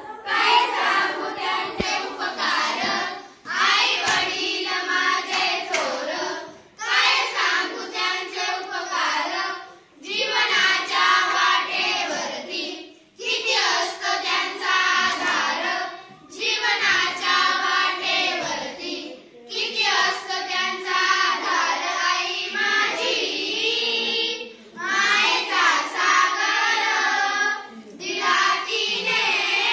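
A group of young girls singing a Marathi song together, unaccompanied, in phrases of about three seconds with short breaks for breath between them.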